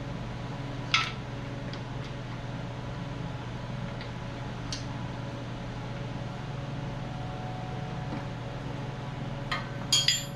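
Steady low hum of a fan with a few sharp metallic clicks and clinks as the cam bearing installer and bearing are handled and positioned in the engine block: one about a second in, and a quick cluster near the end.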